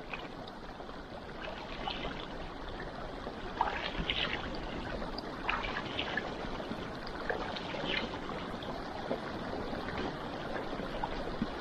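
Water running and trickling steadily, with small splashes now and then.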